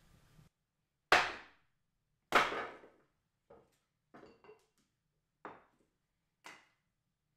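A series of hard knocks: two loud, sharp blows about a second apart, then five lighter knocks and clunks, some with a brief metallic ring.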